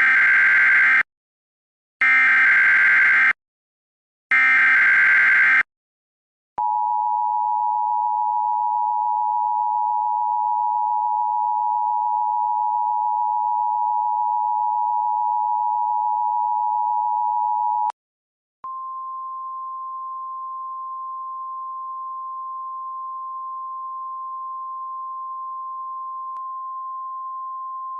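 Emergency Alert System test tones. Three short bursts of the screeching SAME header data come first, then the two-tone attention signal held for about eleven seconds. After a brief pause a single, quieter steady tone holds for about ten seconds.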